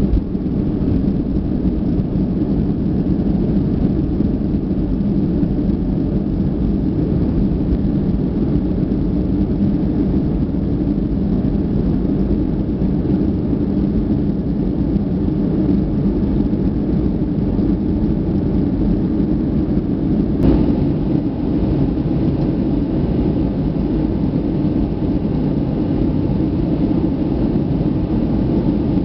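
Boeing 757-200 jet engines at takeoff power, heard inside the cabin as a loud, steady rumble through liftoff and the initial climb. A brief thump comes about two-thirds of the way through.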